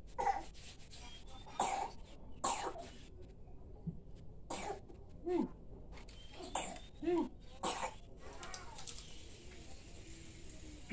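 Several short coughs, about eight, spaced roughly a second apart, a couple of them with a brief pitched, voiced edge.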